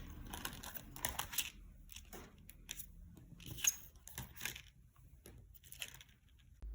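Light, scattered clicks and rustles of small objects being handled, about one or two a second.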